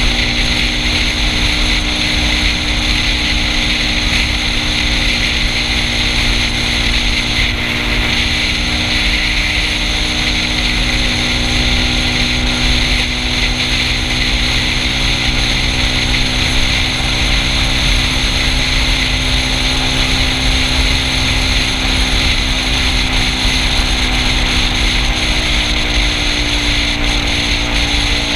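Yamaha Cygnus 125 cc single-cylinder scooter engine running at a steady cruise, over a continuous rush of wind and road noise. The engine note eases slightly lower near the end.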